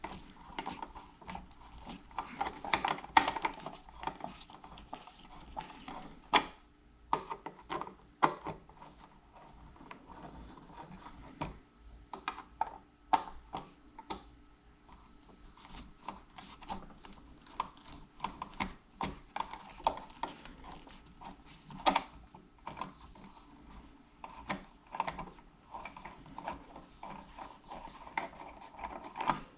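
Insulated screwdriver turning the screws out of an electrical outlet: irregular metal clicks, scrapes and ratchety grinding, with knocks as the outlet and its box are handled.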